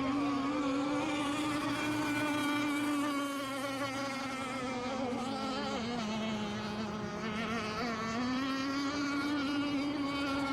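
Radio-controlled racing boats running flat out, a steady high buzzing engine note that dips briefly in pitch twice near the middle and then climbs back.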